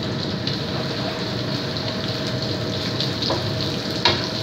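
Sliced shallots, garlic and Thai curry paste sizzling steadily as they fry in hot oil in a wok, stirred with a wooden spatula. A sharp knock about four seconds in.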